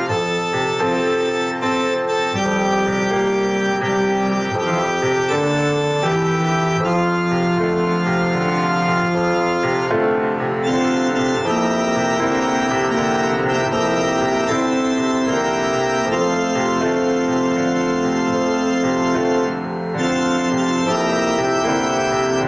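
Pipe or electronic organ playing slow, sustained chords, with a moving bass line and notes held for a second or two each.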